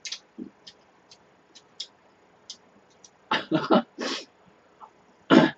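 Close-miked eating mouth sounds: scattered small lip and tongue smacks, then a cluster of louder wet sucking and slurping noises about three seconds in, and another near the end.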